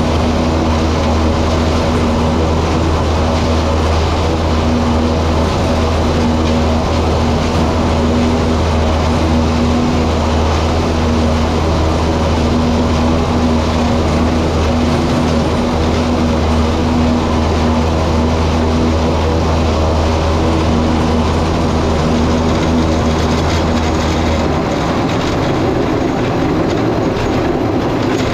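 Tractor engine under load driving a pull-type forage harvester, running steadily as it chops standing corn for silage, with a deep drone and a steady humming tone from the machine. About 25 seconds in the deep drone drops off and the machine sound changes as the harvester comes out of the corn.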